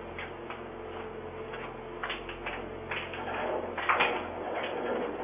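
Doorbell camera's own recorded audio, thin and muffled: a steady hiss and hum with several soft knocks and clatters between about two and five seconds in.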